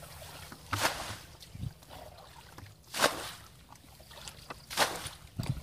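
Muddy water splashing as a bucket is scooped through a shallow ditch and tipped out, three splashes about two seconds apart: a ditch being bailed out by hand to catch the fish.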